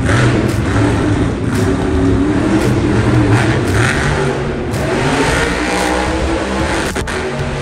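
Monster truck's supercharged V8 revving hard, its pitch rising and falling as the truck spins on the dirt, with a sharp click about seven seconds in.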